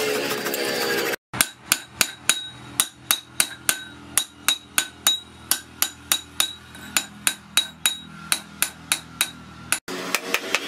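A hand hammer strikes a short steel tube on an anvil in a steady run of about three blows a second, each blow a sharp metallic hit that rings. Before and after the hammering comes a brief stretch of a file rasping on steel.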